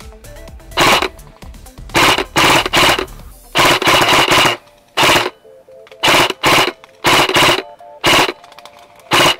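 Airsoft rifle firing about ten short rapid-fire bursts in quick succession, heard close up. Background music plays underneath.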